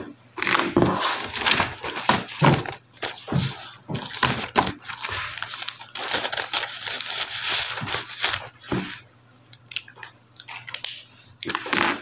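Irregular rustling, crackling and knocking of a hand-held phone being handled and carried, with a quieter stretch a little after the middle.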